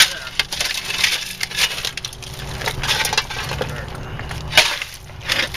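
Loose shale stones clattering and knocking against each other as they are dropped and packed into a mine opening, a string of irregular sharp knocks with one louder knock near the end.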